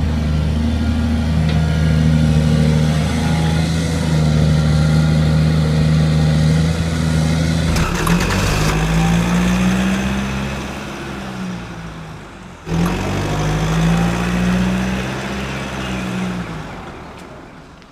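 Truck engine running steadily, then revved up and back down twice, the second rev after a brief break, fading away at the end.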